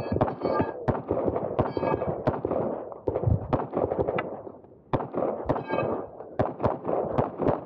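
Staccato P pistol firing rapid strings of shots, often in quick pairs, with short breaks between strings. A brief ringing tone follows a few of the shots.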